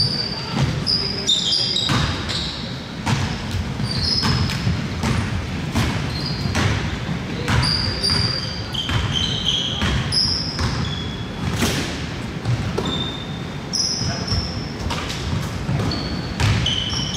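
Basketball game sounds in a gym: a ball bouncing repeatedly on the court, sneakers squeaking in short high chirps, and players' voices calling out, all echoing in the hall.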